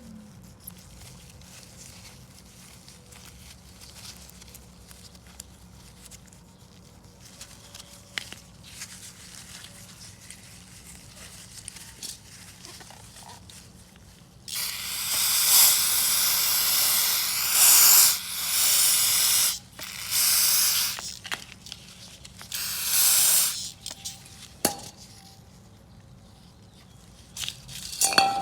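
Pressurized spray hissing in three bursts on lawnmower carburetor parts being cleaned and dried: a long burst of about five seconds starting about halfway through, then two shorter ones. Light clicks and taps of small metal parts being handled before and after.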